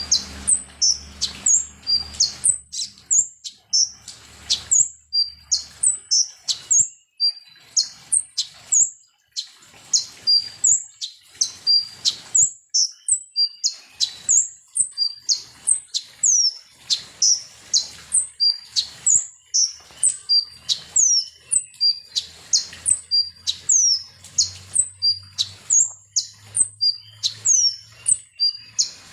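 Konin (kolibri ninja) sunbird singing a rapid, unbroken run of sharp high chirps and short falling whistles, two or three a second. It is a bait recording meant to provoke a caged konin into singing.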